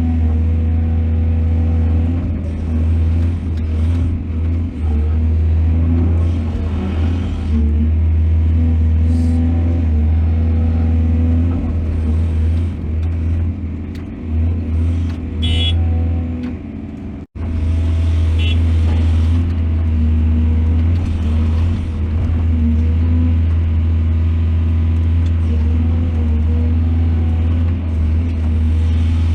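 Excavator's heavy diesel engine running steadily under load with a deep drone, working its hydraulics. A short high-pitched squeal comes about halfway through. The sound cuts out abruptly for a moment a little later, then resumes.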